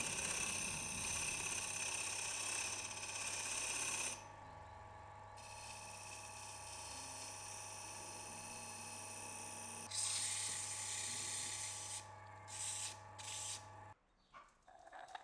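Wood lathe running with a turning gouge cutting into a spinning wooden blank: a steady motor hum under a hissing cut that eases off about four seconds in and comes back strongly around ten seconds. The lathe shuts off shortly before the end.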